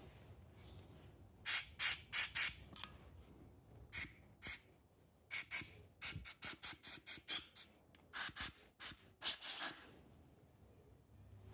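A series of short hissing squirts from a nozzle, bunched in quick runs: four, then two, then a dozen or so in rapid succession.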